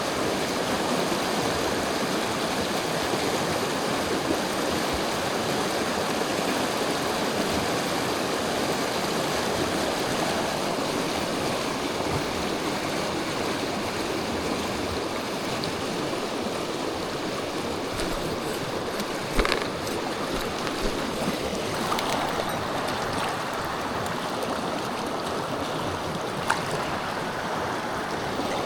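Mountain stream rushing steadily over rocks. A few short sharp clicks or knocks come about two-thirds of the way through and near the end.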